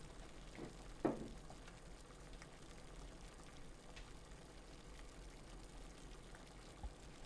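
Objects set down on a wooden tabletop: a soft knock, then a sharper one with a short ring about a second in. Afterwards faint room tone with light handling ticks, and a dull low thump near the end.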